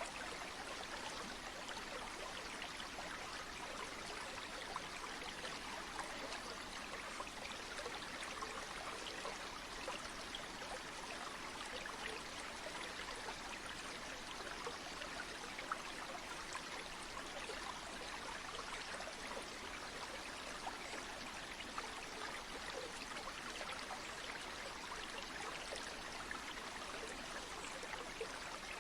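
Flowing stream water: a steady, even rush with many small splashes and trickles through it.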